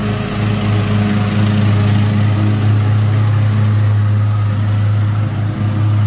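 Cub Cadet XT1 lawn tractor running steadily as it mows up leaves into its dual bagger: a constant low engine hum over the whir of the cutting deck.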